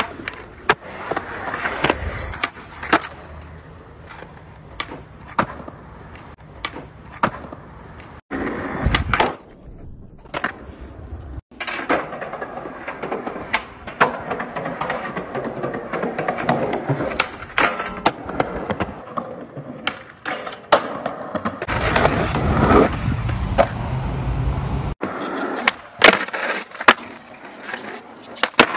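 Skateboards rolling on concrete with the rumble of the wheels, broken again and again by sharp clacks of tail pops, board flips and landings.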